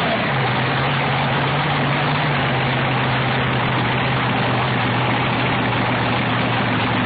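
Supercharged alcohol-burning drag-boat engine idling loudly on its trailer (a trailer firing), settling to a steady idle just after the start.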